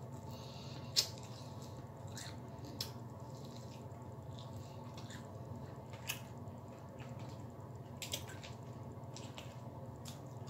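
Wet mouth sounds of someone eating fried chicken wings: scattered short smacks and clicks from chewing and finger-licking, the sharpest about a second in, over a steady low hum.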